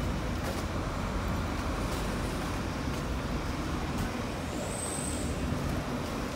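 Steady low drone of bus engines idling, an even rumble with no pauses.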